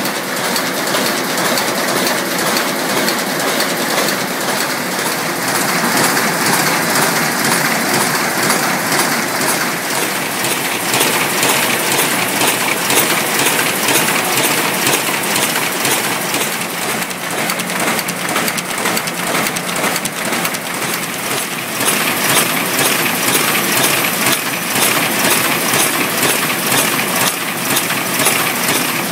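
Grutzmacher envelope inserting line running at speed: a steady mechanical clatter made of many fast clicks.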